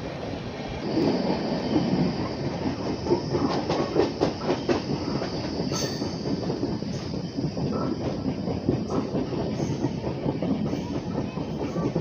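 Moving passenger train heard from one of its LHB coaches: wheels rumbling and clacking over the rails, with a cluster of sharp clacks a few seconds in, and a thin high wheel squeal through the first half.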